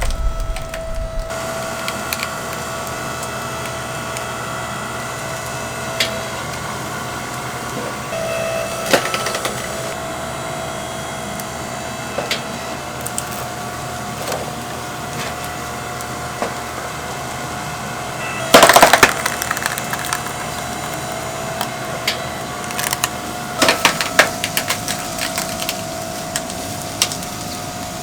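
Oak firewood knocking and cracking as it is handled or burns in a chicken-roasting oven, in scattered sharp clicks over a steady hum. A louder cluster of knocks comes about two-thirds through, and another near the end.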